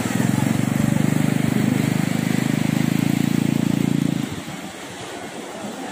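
Small quad bike (ATV) engine running close by with an even, rapid pulsing, then stopping abruptly about four seconds in.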